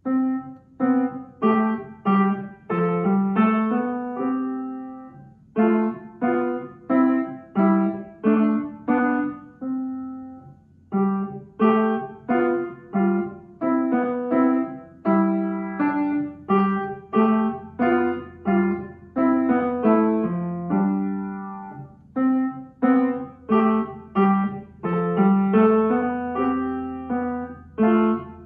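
Upright piano playing an arrangement of a French folk song: a simple tune of short, separated notes in phrases, with brief pauses between phrases.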